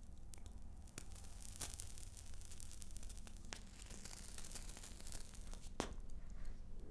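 Burning cigarette tip crackling as it is drawn on: a faint, irregular scatter of sharp little crackles over a soft hiss, with one louder crack near the end.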